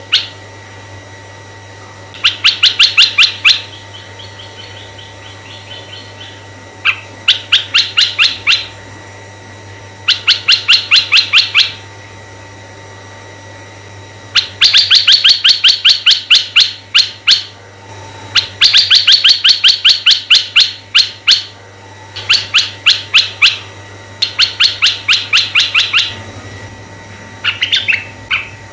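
Asian red-eyed bulbul calling: repeated bursts of rapid, evenly spaced chattering notes, about six a second, each burst lasting a second or two, with pauses of a few seconds between them, over a faint steady hum.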